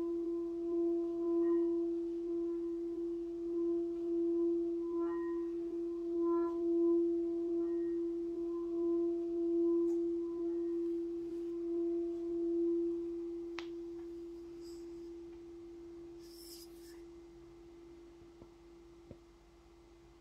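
Singing bowl with water in it, rubbed around the rim with a wooden mallet: one steady low hum with fainter overtones, its loudness swelling and dipping about once a second. About two-thirds of the way through the rubbing stops with a small click, and the tone fades slowly.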